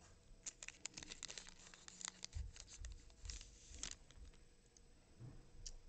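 Foil baseball card pack being torn open and its wrapper crinkled: a quick run of faint crackles for the first few seconds, then a few more near the end.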